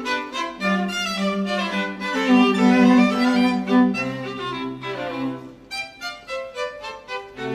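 Background music on bowed strings, violin over a lower cello-like line, with sustained notes and a run of quick short notes near the end.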